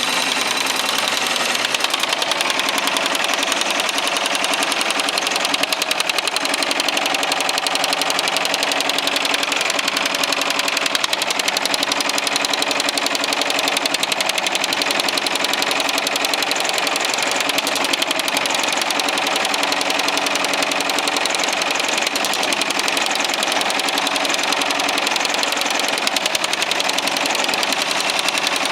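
Baileigh MH-19 power hammer running continuously, striking sheet metal with a rapid, even stream of blows as a panel is shaped.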